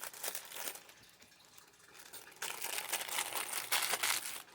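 Plastic craft-supply packaging crinkling as it is handled: a few light clicks, then a denser spell of crinkling for about two seconds near the end.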